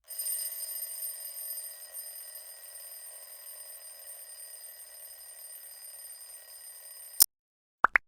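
A steady electronic ringing tone, several high pitches held together, that cuts off abruptly with a click about seven seconds in, followed by two short rising chirps near the end.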